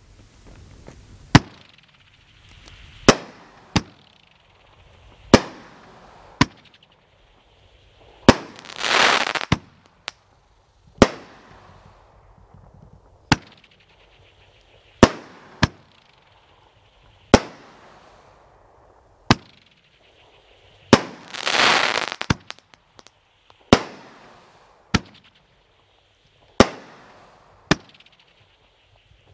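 'Showing Your Stuff' multi-shot firework cake firing about twenty single sharp shots, one every one to two seconds, each followed by a short fading tail. Twice, about a third of the way in and again about three quarters through, a longer burst of dense crackling fills a second or so.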